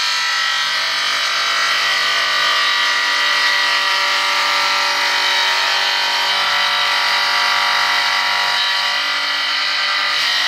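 Radial arm saw running and ripping a maple board lengthwise, blade cutting steadily through the wood with the motor's steady whine underneath.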